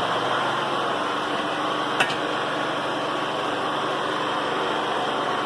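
WEN 625i inverter generator running steadily during its break-in. A single sharp click comes about two seconds in.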